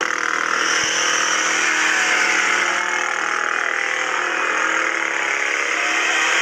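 Three-wheeled motorcycle engine running and being revved, its pitch wavering about four seconds in.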